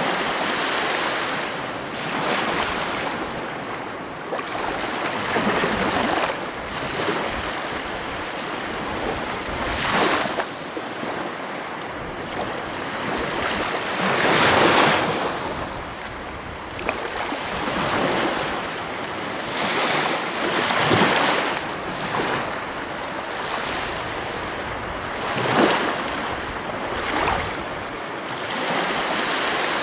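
Heavy ocean surf breaking against the coast: a continuous wash of water with louder crashes every few seconds, the biggest about halfway through, and some wind buffeting the microphone.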